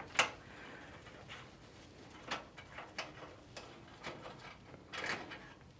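A few light, scattered clicks and metal taps from hardware being handled in a steel PC case, as expansion-slot covers are removed and a graphics card is lined up with its slot.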